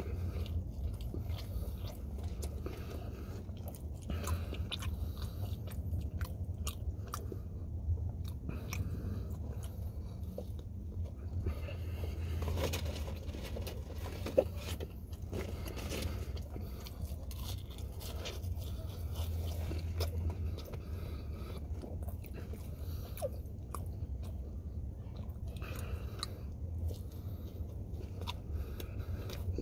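A person biting and chewing a fast-food burger-and-fries meal, with many small wet, crunchy clicks, over a steady low hum. One sharp click stands out about halfway through.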